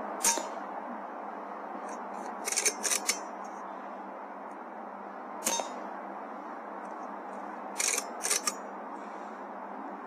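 AGT Uragan 2 air rifle fired twice, each shot a sharp crack with a short metallic ring, one near the start and one about halfway through. A quick run of clicks follows each shot a couple of seconds later, over a steady hiss.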